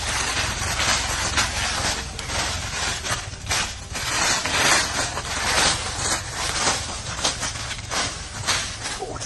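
Dry leaves crackling and rustling, from a small fire of burning leaf litter and feet moving over the leaves, with many sharp crackles throughout over a steady low rumble.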